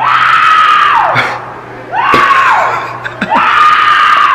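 A man screaming in fright on a virtual-reality roller-coaster simulator: three long, high screams about a second each, each dropping in pitch as it trails off.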